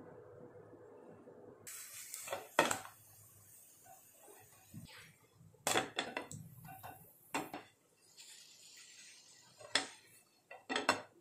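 Kitchen utensils and dishes clinking and knocking now and then, in a handful of separate sharp clacks scattered through a quiet kitchen.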